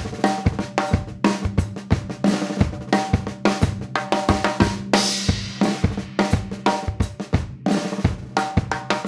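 Drum kit playing a New Orleans second-line fill in straight sixteenth notes on the snare drum, with bass drum and hi-hat under it and a cymbal crash about five seconds in.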